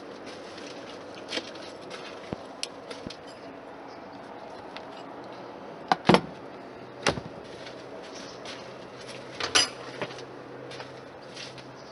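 Scattered metallic clinks and knocks of parts and tools being handled while the rear panels are stripped off a motorcycle, with three louder clacks about six, seven and nine and a half seconds in. A faint steady low hum runs underneath.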